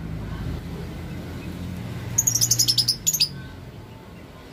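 Lovebird in breeding condition giving a rapid, shrill burst of chirps about two seconds in, lasting about a second, over a low steady rumble.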